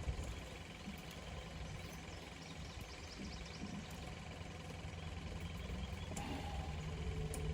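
Low steady motor hum, with faint high chirps for a second or so in the middle.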